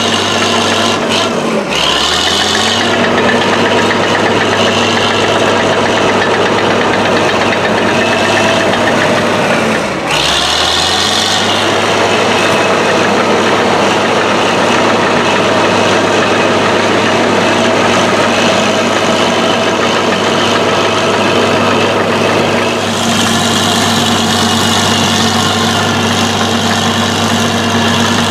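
Fiat Allis AD14-C crawler dozer's diesel engine running steadily at full power under heavy load, pulling a leveling blade through hard ground. The engine note drops briefly about two seconds in and again about ten seconds in, then picks back up.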